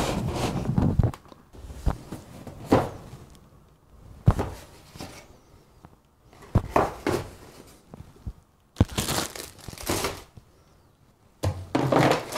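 Cardboard boxes and packaging being handled and set down on a hard table: irregular rustling, scraping and knocks, with crinkling from plastic-wrapped cable coils.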